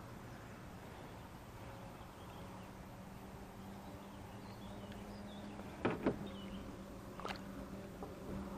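Quiet ambience on the water with a faint steady low hum, and a few small clicks and taps about six and seven seconds in from handling the fishing rod, line and hook in a kayak.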